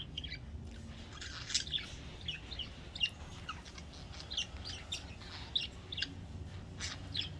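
Pet budgerigars chirping: many short, high chirps and quick whistled notes come irregularly throughout.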